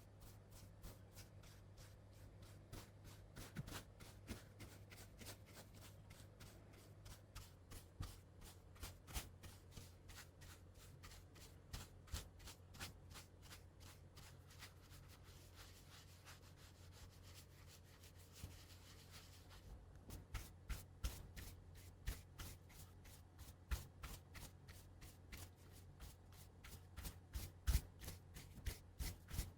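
Close-miked ASMR handling sounds from a makeup simulation: light taps, clicks and rustles of hands and objects. They come thicker in the last third, over a faint steady low hum.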